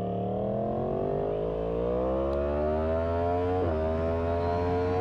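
Yamaha MT-10's crossplane inline-four engine accelerating, its pitch climbing steadily. About three and a half seconds in there is a short dip for an upshift, and then it climbs again more slowly.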